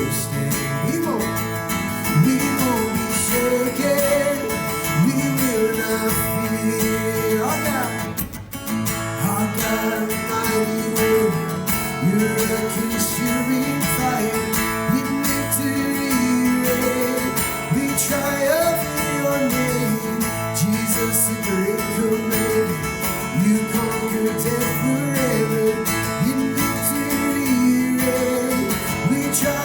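Worship band music with strummed acoustic guitar to the fore, an instrumental passage with a wandering lead melody over steady chords and a brief dip about eight seconds in.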